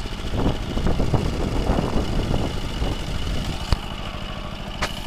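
ZUBR 10 hp walk-behind tractor engine running steadily with a low pulsing beat, with two sharp clicks near the end.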